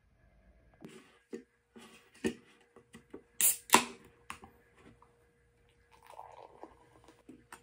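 An aluminium beer can is handled with light clicks and taps, then its tab is pulled open with two sharp cracks about three and a half seconds in. Near the end, beer pours into a glass.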